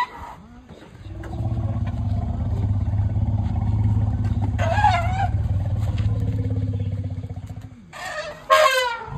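Asian elephants rumbling in greeting: one long, low, steady rumble lasting several seconds, with a short higher warbling squeak about five seconds in. Shrill trumpeting squeals begin near the end.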